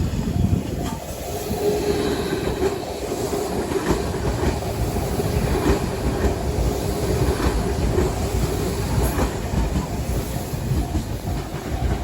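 A train running past, its wheels clacking over the rail joints in a repeated rhythm of knocks over a steady rumble, with a steady hum through most of the pass.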